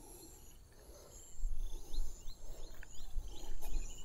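Outdoor ambience of insects shrilling steadily with short bird chirps. From about a second in, a loud low rumble on the microphone covers it in uneven gusts.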